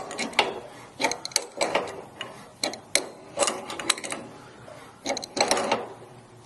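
Metal tool clicking and clattering in short irregular bursts as the back nut of an espresso machine steam valve is tightened with a wrench, pressing the new gasket flat.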